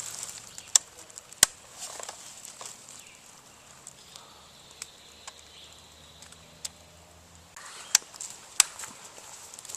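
Two sharp, loud cracks a little under a second apart about a second in, and two more near the end, with faint ticking and crackling between them.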